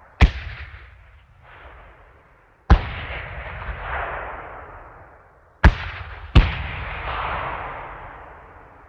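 Four sharp explosive blasts, the last two less than a second apart. Each is followed by a long rolling echo that dies away over a few seconds.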